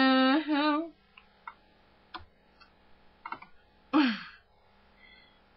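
A young woman's sung note, the end of a line, held with a wavering pitch and dying away within the first second. After that there are a few faint small clicks, and about four seconds in a short breathy vocal sound falling in pitch, like a sigh.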